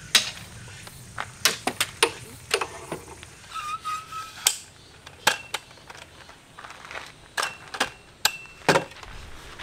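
Irregular clicks and sharp knocks of camping gear being handled while a tarp is pitched, a couple of the knocks ringing briefly like struck metal. A short squeak about four seconds in.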